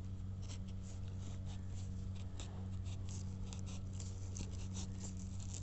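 A knife blade scraping and slicing into a green wheat stem, making a run of small crisp scratching ticks, over a steady low hum.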